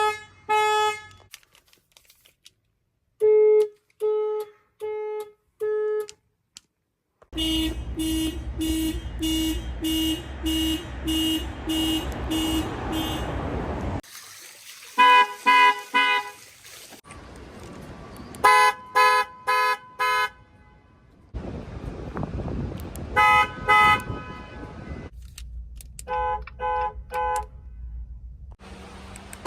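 Car alarms from several different cars, one after another, each horn at its own pitch. Some sound in short groups of two to four blasts; one pulses steadily at about two honks a second for several seconds.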